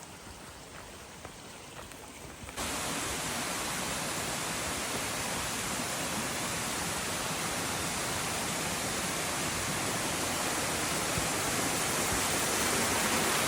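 Steady rush of water in a mountain stream, loud and even, cutting in suddenly about two and a half seconds in after a quieter stretch with light ticks.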